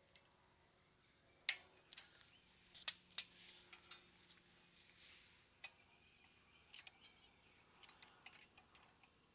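Faint, scattered metallic clicks and ticks of hand tools on the exhaust rocker arm of a Kohler Courage SV725 engine as its adjusting nut is torqued to 70 inch-pounds and checked. The sharpest click comes about a second and a half in, with a few more around three and five and a half seconds.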